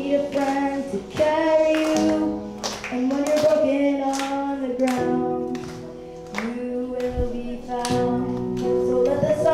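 A boy singing into a microphone over a backing track of held chords with a steady drum beat.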